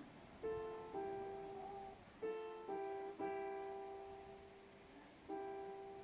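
Background music: slow, sparse piano notes, each struck and left to fade.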